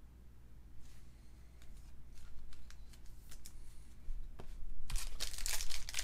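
Trading cards being handled with light clicks and rustles, then, about five seconds in, a foil pack of 2019 Topps WWE Undisputed cards being torn open with loud crinkling.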